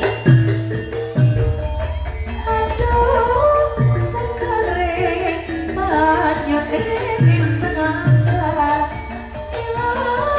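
Javanese gamelan music accompanying a lengger dance: low hand-drum strokes that drop in pitch, with mallet-struck metallophones and gongs carrying the melody. A singer's wavering line comes in about four seconds in.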